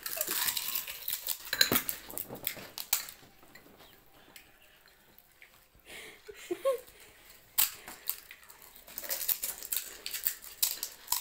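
Crisp cracking and crunching of hollow fuchka (pani puri) shells as they are poked open with the fingers and eaten, with light taps on the plates. The clicks come thick at first, go quiet for a few seconds in the middle, then pick up again near the end.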